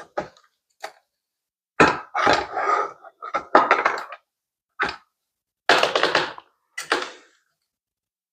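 Knocks and clunks of a steel bicycle fork being slid into the frame's head tube and headset: a string of sharp knocks, some followed by rattling lasting under a second.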